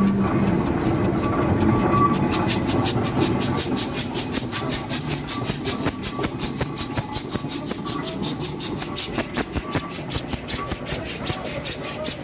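Steam engine working, its exhaust beating in a fast, even rhythm of about five or six hissing chuffs a second that becomes clear a couple of seconds in.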